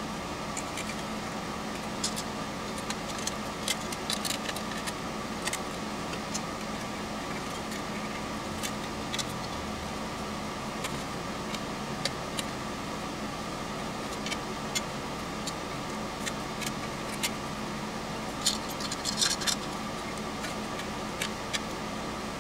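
Light metal clicks and clinks of a screwdriver, small screws and nuts as a wire fan guard is screwed onto a thin aluminium project box, with a quick flurry of clinks near the end, over a steady background hum.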